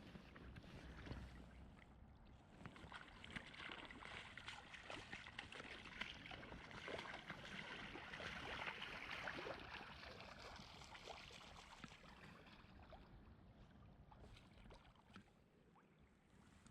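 Faint creek water splashing and gurgling, with many small splashes that build toward the middle and then fade near the end.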